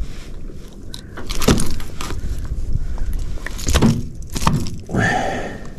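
Handling noise of a caught barracuda held down by hand on wooden decking: scattered knocks, scrapes and rustles of the fish and lure against the boards, with low wind rumble on the microphone at the start.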